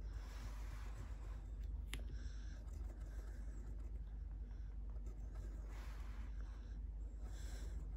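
Faint pencil scratching on paper in short strokes while small dots and marks are drawn, with one sharp tick about two seconds in.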